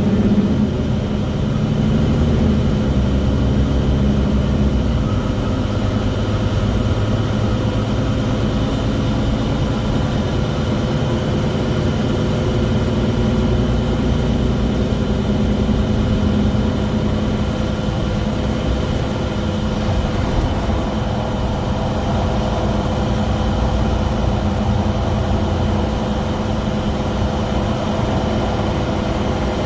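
Mercedes-Benz Citaro G articulated city bus running, a steady low engine and drive rumble with a steady high whine held over it.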